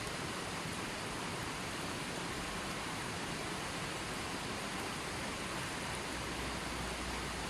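Running water flowing steadily, an even unbroken rush with no splashes or pauses.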